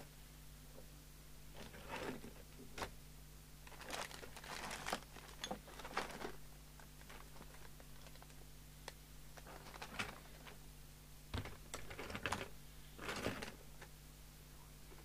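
Small objects on a workbench being picked up and moved about: irregular light clicks, taps and rustles, some in quick clusters, over a steady low hum.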